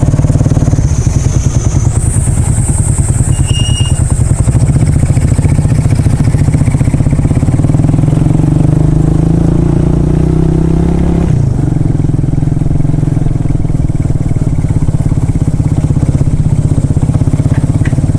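Small single-cylinder motorcycle engine running on the move, with a fast, even beat of firing pulses. Its pitch climbs gradually, then falls back abruptly about two-thirds of the way through.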